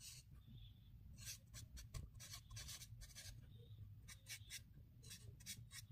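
Doms Refillo marker writing on paper: a run of short, faint scratchy strokes as lines and a word are drawn.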